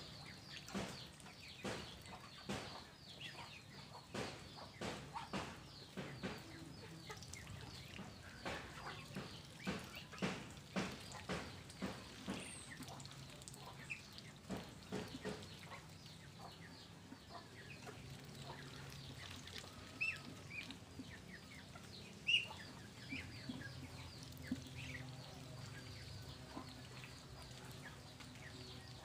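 A flock of Muscovy ducks and ducklings feeding on rice bran: rapid clicks of bills pecking and dabbling through the first half, with scattered short calls later on.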